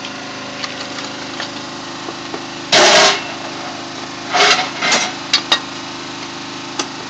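Small engine running steadily, driving rail welding equipment clamped on the track. A loud burst of noise lasting about a third of a second comes about three seconds in, with several shorter loud bursts between four and a half and five and a half seconds.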